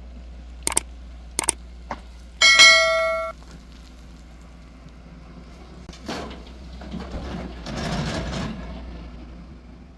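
Excavator loading soil into a dumper: its engine runs steadily under a few sharp metal knocks. About two and a half seconds in comes one loud ringing metallic clang of steel on steel, lasting about a second. Near the end a rough rumble rises and fades.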